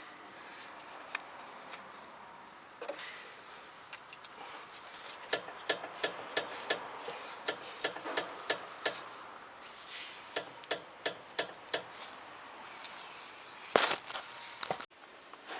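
Rapid series of light clicks and knocks from a Toyota Esquire on the move, coming in runs of about two or three a second, with a louder rattling burst near the end: the driving noise the owner puts down to a shock absorber.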